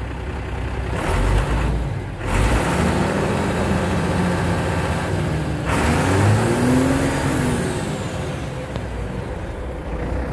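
International DT360 inline-six turbo diesel in a 1993 International 4700 running through its vertical exhaust stack. It is revved up and let back down twice over a steady idle, and a loud rushing hiss comes with the first rev.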